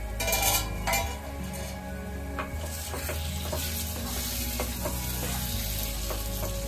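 Egg masala sizzling in a nonstick pan while a spatula gently stirs and scrapes through it, with a steady frying hiss and small scraping ticks. A couple of sharp knocks come in the first second.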